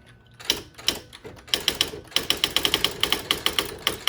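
Smith Corona The Office 2000 electronic typewriter printing as it is typed on: a few separate sharp strikes, then from about a second and a half in a fast, even run of clicks at several strikes a second.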